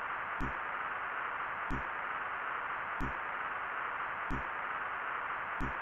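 Steady static hiss with a soft thump-click repeating about every 1.3 seconds.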